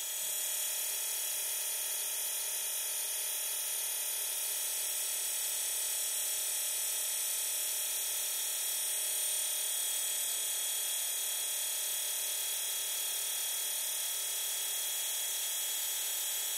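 Hydraulic pump of an RC hydraulic excavator model, driven by its electric motor, running steadily with a high, even whine as it circulates oil.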